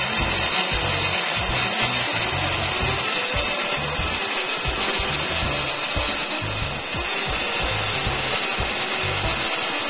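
Montolit Tornado 970T electric tile saw running, its diamond disc cutting steadily through tile with a constant high whine, over background music with a beat.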